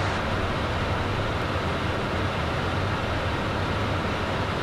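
Steady in-flight noise inside the cockpit of a Beechcraft Premier 1A business jet: an even rush of air and engine noise with a low hum underneath.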